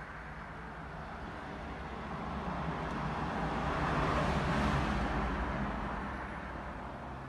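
A motor vehicle passing by: a steady rushing sound with a low hum that grows louder to a peak about four to five seconds in, then fades away.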